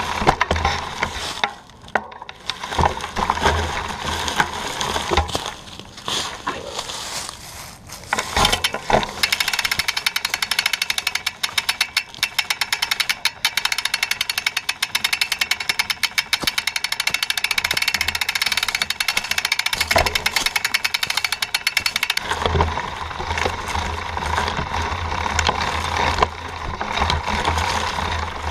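Mountain bike rolling over a leaf-covered dirt trail, heard through a camera on the bike's frame: tyres crunching through dry leaves with the frame and chain rattling over the bumps. From about a third of the way in until near the end there is a fast, even clicking rattle, which then gives way to a rougher rumble.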